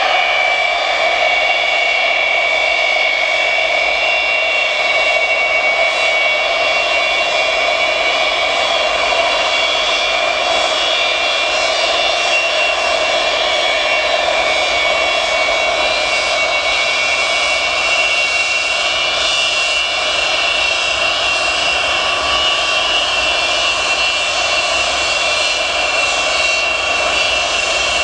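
Antonov An-225's six D-18T turbofan engines running at taxi power as the aircraft rolls along the ground: a loud, steady whine made of several high tones over an even band of engine noise.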